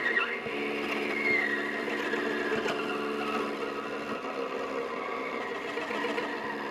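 Violas played with accessories in experimental improvisation: a buzzing drone of several held low pitches, with a high tone sliding downward about a second in. The drone shifts about four seconds in.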